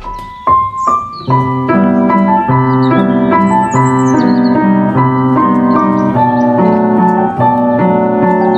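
Background piano music: a few single notes, then steady repeated chords from about a second in.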